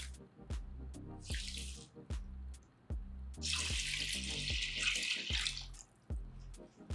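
Water poured from a glass measuring cup into a baking dish of lentils and vegetables, splashing steadily for about two seconds past the midpoint. A brief rattle of mixed vegetables tipped into the dish comes just after the start, all over background music with a steady beat.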